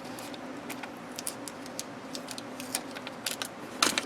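Small clicks and rustles of craft supplies and their packaging being handled, with a louder click-rustle near the end, over a steady low hum.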